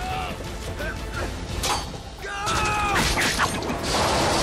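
Film sound effects of a truck's metal body creaking and groaning in drawn-out, falling screeches, with clanks and rattles about halfway through. A loud rushing swell comes near the end.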